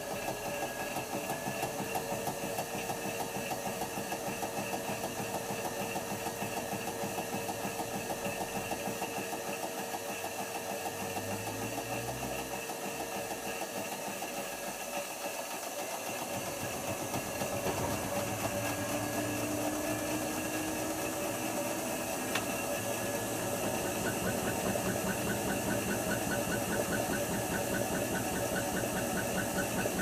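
Hotpoint HF8B593 washing machine running its final spin: the motor and turning drum give a steady, fast rhythmic whirr. The motor's pitch shifts partway through and the sound grows a little louder in the second half.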